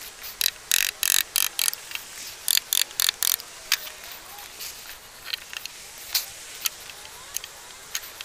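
Hammer striking a chisel, chopping a shallow notch into a pine 4x2 sawhorse leg as the housing for a stretcher. It gives a run of sharp knocks, quick in the first three seconds or so, then a few scattered knocks.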